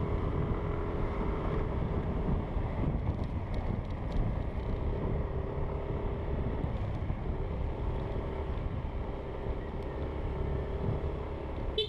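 Yamaha Aerox scooter's single-cylinder engine running at a steady speed while riding, with wind buffeting the microphone.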